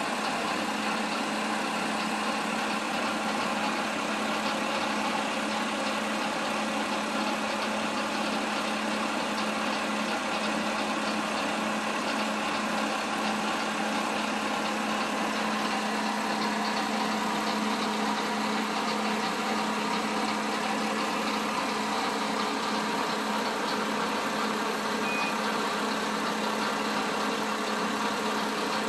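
Watarase Keikoku Railway WKT-500 series diesel railcar idling while standing, a steady engine sound with a constant low hum.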